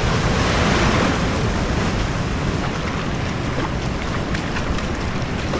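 Ocean surf washing against a rocky shore, with wind buffeting the microphone. A few faint ticks come through in the second half.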